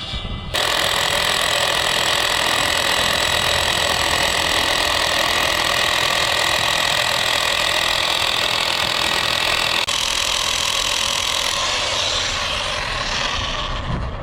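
An engine-driven machine running steadily; it starts abruptly about half a second in and tails off near the end.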